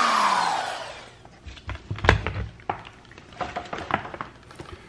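Power drill fitted with a spin swaging bit spinning down, its whine falling in pitch and fading out over about the first second. A few light clicks and knocks follow.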